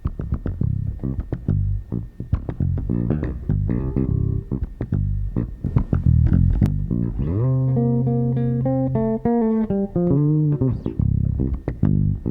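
Electric bass played: a run of fast plucked notes with sharp, percussive attacks, then a note slid up about seven seconds in and held, followed by a falling line of notes and a return to fast notes near the end.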